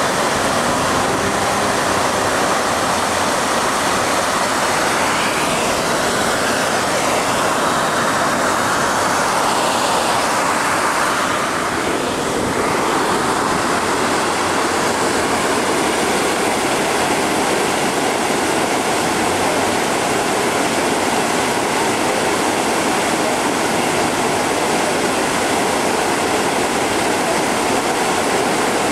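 Steady rushing of water flowing along a narrow canal, a constant hiss with no let-up.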